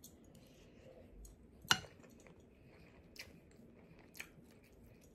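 Faint mouth-close chewing of a mouthful of shrimp fried rice, with a few sharp clicks from the metal spoon: one loud click about a second and a half in, and lighter ones later as the spoon scoops in the glass bowl.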